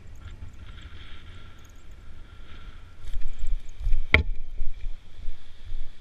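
Wind buffeting the microphone, a low rumble that gusts louder about halfway through, with one sharp click a little after that.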